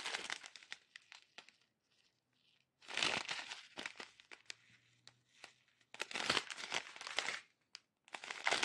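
Thin plastic sachets of round diamond-painting drills crinkling as they are handled and flexed, in several bursts of crackling with short quiet pauses between.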